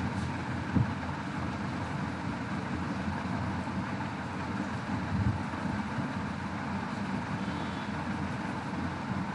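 Steady low background rumble and hiss, with a single soft click a little under a second in.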